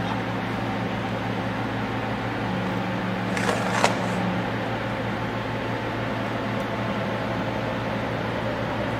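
Steady workshop hum, with a short metallic knock and scrape about three and a half seconds in as the stainless steel pump casing and its end cap are handled on a steel workbench.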